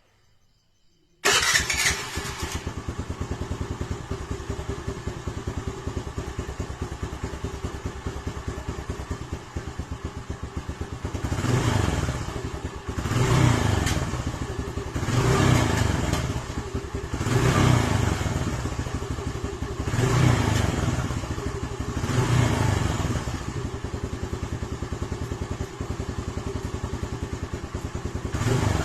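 Honda Navi scooter's small single-cylinder engine starts about a second in and idles with a fast, even beat. About halfway through it is revved in a series of short throttle blips, roughly one every two seconds.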